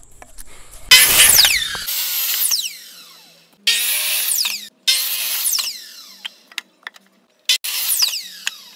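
A handheld power tool run in about five short bursts, each starting abruptly, its pitch falling as it goes on.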